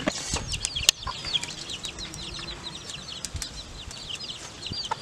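Chickens peeping and clucking: many short, high, falling chirps several times a second, with the odd lower cluck. A single sharp click sounds just under a second in.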